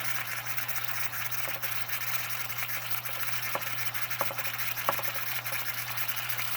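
Steady hiss of steam from an Empire B42 twin-boiler toy steam engine over a low steady hum, with a few faint clicks. The long-idle engine is stiff and not yet running: a cylinder is stuck on a very tight compression stroke.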